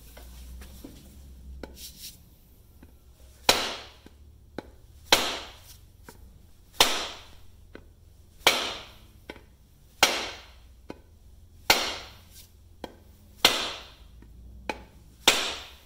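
A mallet striking the end of a wooden axe handle eight times, starting about three and a half seconds in, one sharp knock roughly every second and a half, each with a short ring. The blows drive the axe head up onto the handle as it is hung. Fainter small knocks fall between some of the blows.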